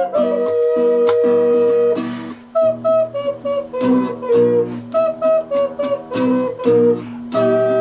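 Wooden double (duet) ocarina playing a fast, lively melody in two-part harmony, over an accompaniment of guitar chords and a steady beat. The melody breaks off briefly a little after two seconds and again near the end.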